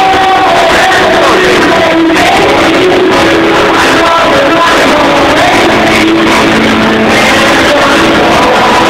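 Loud karaoke: a pop backing track playing, with a group of amateur voices singing along.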